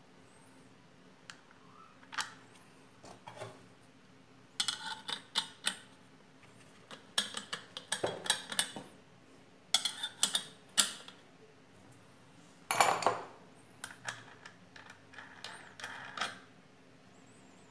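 Steel grass-cutter blade, metal washers and nut clinking and knocking against the motor shaft and plastic guard as they are fitted by hand, in irregular runs of clicks with a brief metallic ring, loudest about thirteen seconds in.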